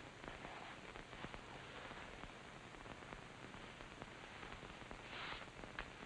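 Faint hiss with a scatter of small crackles from an old film soundtrack, and a brief soft rustle about five seconds in.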